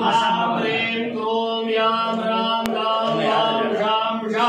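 Male voice chanting mantras in long held notes over a steady low tone, with one sharp click a little past halfway.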